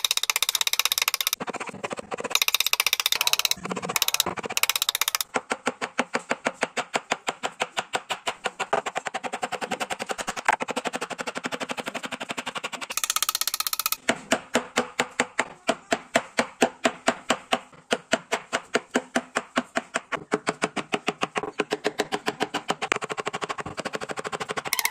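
Wood-carving chisel driven into a wooden door panel by rapid light taps, about four to five sharp knocks a second, with scraping cuts in the first few seconds and again about thirteen seconds in.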